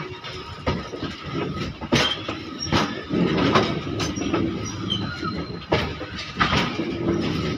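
Long freight train of open wagons rolling past close by: a steady rumble with sharp, irregular clacks as the wagon wheels run over the rail joints.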